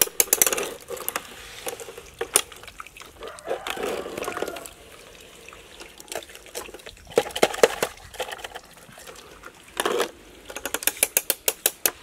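Plastic toy front loader worked by hand in wet sand and shallow water: splashing and sloshing, wet sand dropping into a plastic toy dump truck's bed, and several bursts of rapid plastic clicks and rattles.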